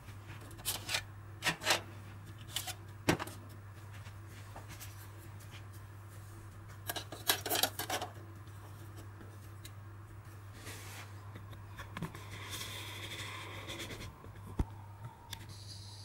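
Scattered clicks and scraping as a bare 2.5-inch SSD is slid into an empty drive bay of a Dell R710 server and pushed onto the SAS backplane connector, with a stretch of rubbing near the end. A low steady hum runs underneath.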